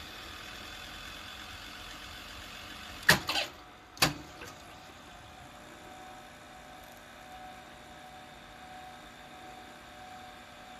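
Control keys of a Toshiba GV-201C open-reel color video tape recorder clunking into place, two sharp mechanical clicks about a second apart, the first with a short rattle, over a steady hum, as the machine is switched from a blank screen into playback.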